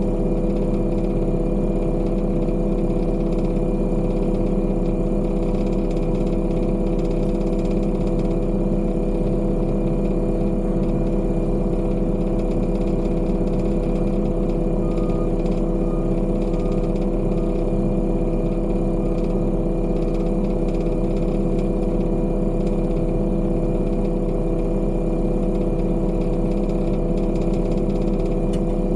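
Heavy construction machine's engine running steadily at a constant pitch. A faint reversing alarm beeps several times about halfway through.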